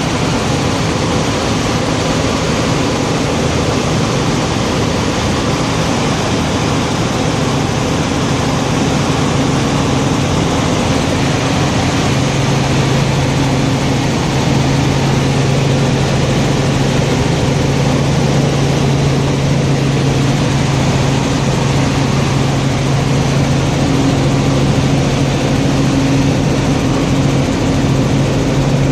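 Helicopter engine and rotor droning steadily, heard from inside the cabin, with a low hum that grows stronger about twelve seconds in.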